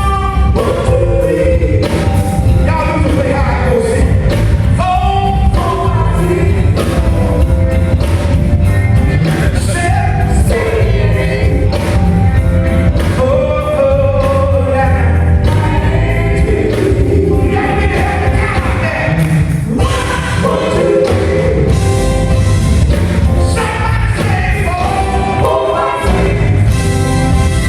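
Gospel music: a choir singing over a band with a steady drum beat and bass.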